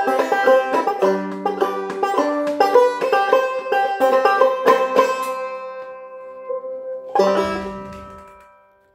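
1927 Vega Vegaphone Artist banjo played clawhammer style: quick picked notes for about five seconds, then a few notes left ringing, and a final chord about seven seconds in that rings out and fades away.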